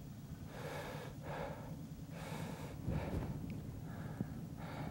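A man breathing hard in short, irregular puffs close to the microphone, about one a second, from exertion while fighting a fish.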